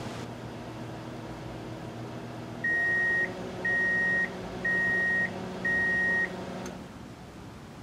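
A 1987 GE microwave oven running with a steady hum, then four long, even beeps about a second apart as the timer runs out. The hum stops with a click near the end.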